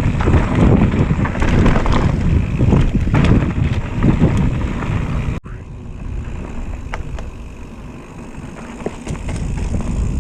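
Mountain bike riding down a rough dirt trail: wind buffets the microphone while the tyres and bike rattle over roots and rocks. About five seconds in the sound cuts off abruptly to a quieter rumble with a few scattered clicks.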